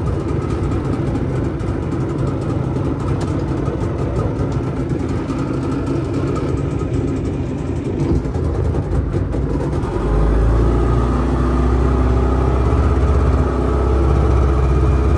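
Yamaha outboard motor running steadily as the open boat moves over the water, mixed with wind and water noise. About ten seconds in it grows a little louder, with a steady deep hum.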